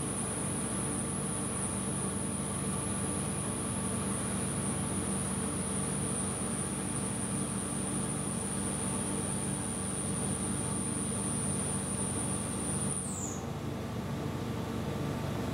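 Four-flute carbide end mill slot-milling SUS304 stainless steel at 2,900 rpm under flood coolant: steady cutting and coolant-spray noise with a high, steady whine that glides down in pitch about 13 seconds in.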